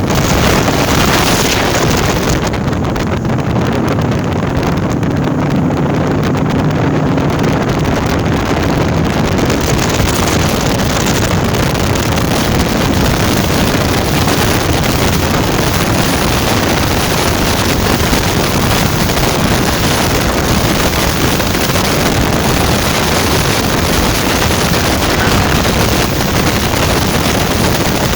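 Yamaha 250 outboard on a bass boat running at high speed, its steady drone mixed with heavy wind buffeting the microphone.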